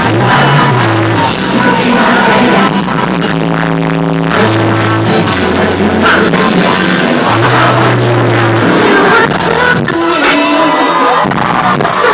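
Live pop/R&B music over a festival sound system, heard from within the crowd: held synth-bass notes that step between pitches, with a male voice singing over the band.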